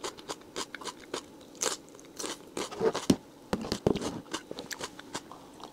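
A person chewing and biting food close to the microphone: irregular moist clicks and small crunches, several a second.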